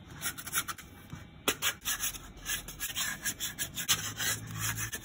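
Hands shaping pieces of sourdough dough on a floured wooden countertop: a quick series of short rubbing scrapes as the dough is pushed and turned against the wood during preshaping.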